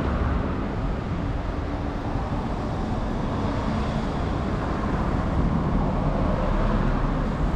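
Steady low rumble of outdoor street noise, strongest in the bass and without any distinct events.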